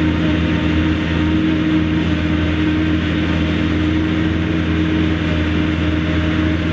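Mercedes-Benz MB Trac 800's four-cylinder diesel running steadily under load, powering a Taarup 101 forage harvester through the PTO, mixed with the harvester's chopping and blowing of maize. The steady hum holds an even pitch throughout.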